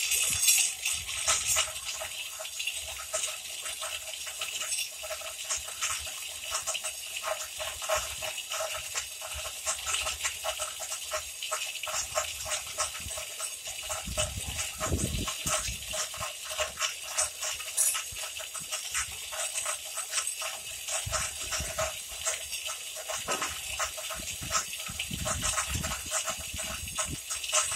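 Small electric winch running with a rapid, irregular clatter from its gears and lifting chain. It is hauling a borewell motor and its pipe column up out of the well.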